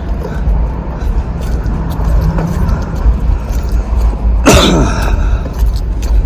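A person coughs once, loudly, about four and a half seconds in, over a steady low rumble. The cough is from a cold.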